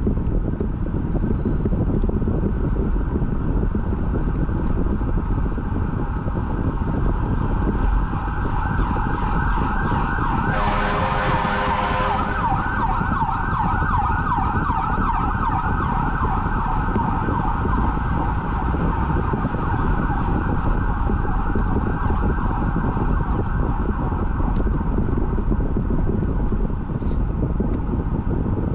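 An emergency vehicle's siren, rapidly warbling, comes up over steady road and engine noise, is loudest about ten to twelve seconds in with a short horn blast, and fades away later on.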